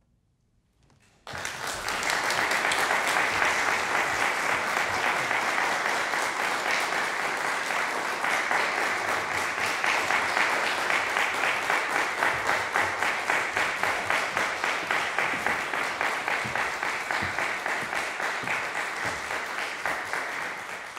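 Audience applauding: the clapping breaks out suddenly about a second in after a moment of silence, keeps on steadily and begins to die away near the end.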